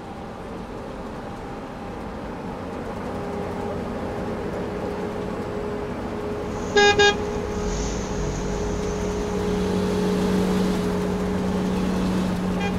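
Car engine running steadily and slowly getting louder, with a car horn tooting twice in quick succession about seven seconds in.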